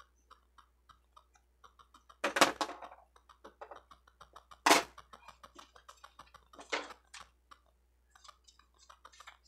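Hands handling a diamond painting pen and small craft packaging: a run of light clicks and ticks, with a louder handling noise about two and a half seconds in, a sharper short one just before five seconds, and a smaller one near seven seconds.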